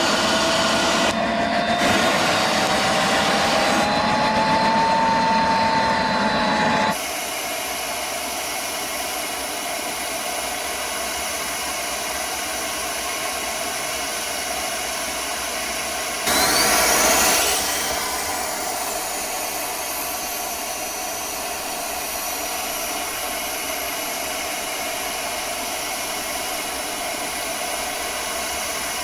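Turbochargers blowing a homemade twin-turbo furnace: a steady rushing hiss of air and fire with a turbo whine rising in pitch over the first several seconds. About seven seconds in the sound drops abruptly to a quieter steady rush; about halfway a brief louder surge with a fast-rising whistle comes, followed by a high whistle that slowly falls.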